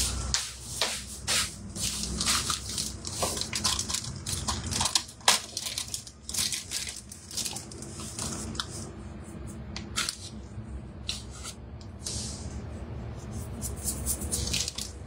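Irregular clicks, taps and rustling from kitchen items being handled while someone rummages for a seasoning, over a steady low hum.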